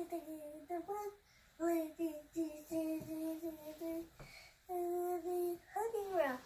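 A young boy singing a wordless tune in short held notes on a few pitches, a longer held note past the middle, and a swooping downward slide near the end.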